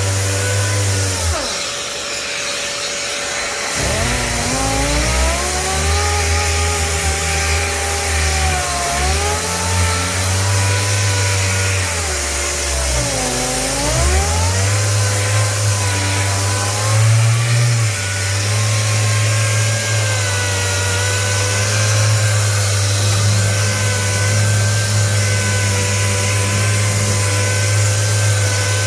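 Random orbital sander with an 80-grit 3M Xtract disc sanding body filler, running continuously. Its pitch wanders and dips as it is pressed into the work, deepest about 13 seconds in, and its low hum drops away briefly about two seconds in. A steady tone runs underneath.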